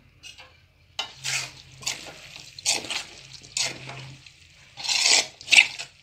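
Spoon stirring and tossing cooked pasta in a large metal pot: a run of separate scrapes of the spoon against the pot, about one every half second to second, loudest near the end.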